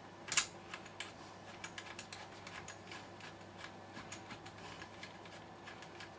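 Small irregular clicks and taps of a cable plug and lead being handled and fitted into a socket on the back of a CB radio, with one sharper click about half a second in.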